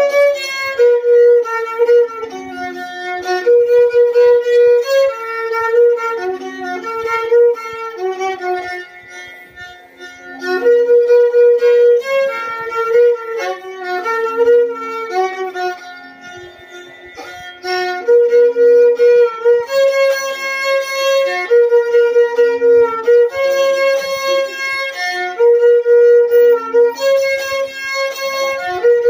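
Solo violin bowed in the Carnatic manner, playing a slow melody with sliding ornaments between notes over a steady lower note. The line softens briefly twice, about a third of the way and halfway through.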